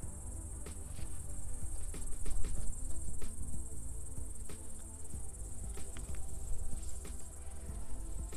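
Steady high-pitched chirring of crickets or grasshoppers, with scattered soft clicks and a low rumble that swells loudest two to three seconds in.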